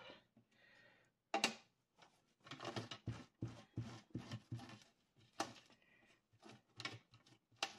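A clear rubber stamp on its acrylic block is handled and briefly wiped on a cloth to clean off the ink. It makes light knocks against the craft mat and a short run of small rubbing and scraping noises in the middle, separated by quiet gaps.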